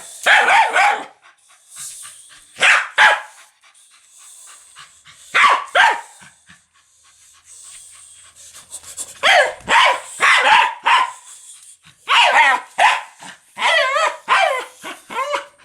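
A dog barking loudly in clusters of a few barks, with pauses of a second or more between the clusters.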